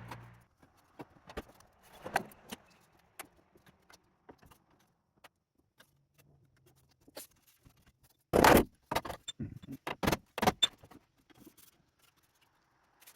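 Scattered metallic clicks and taps of tools and sheet metal being worked on a VW bus rear-quarter patch panel. A cluster of short, sharp bursts comes about eight and a half to ten and a half seconds in, the first the loudest.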